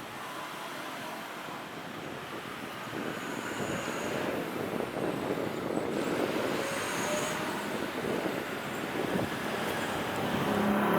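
Jet airliner engines, a broad rushing noise that grows steadily louder, with a brief dip about eight seconds in.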